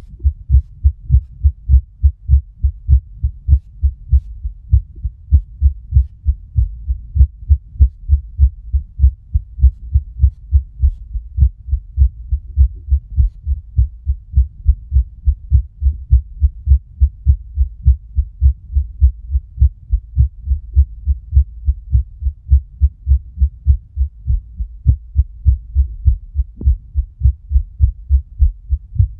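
A woman's heartbeat heard through a stethoscope on her chest: deep, steady thumps about twice a second.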